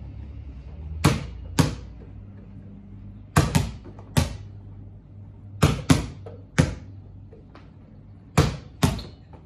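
Basketballs slapping into hands as they are tossed and caught in a two-ball hand-switching drill: sharp, echoing smacks in quick pairs and threes, a cluster about every two and a half seconds.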